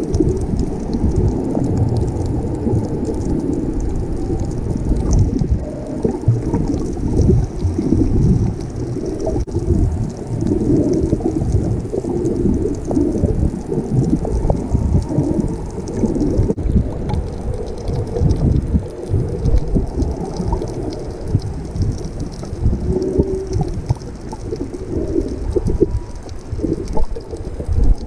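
Underwater sound picked up by a submerged camera: a muffled, uneven rumble and churn of moving water.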